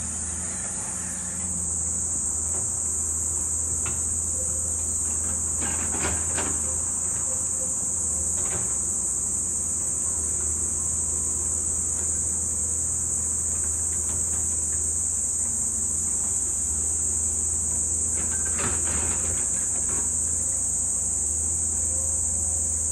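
Insects give a steady, high-pitched buzz that grows louder about a second and a half in. Underneath is a low steady hum and a few short knocks.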